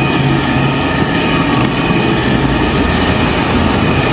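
Motorised paddle stirrer running steadily with a constant motor hum, its blade churning thick meat-and-flour filling in a large pot while the filling is cooked to a firm paste.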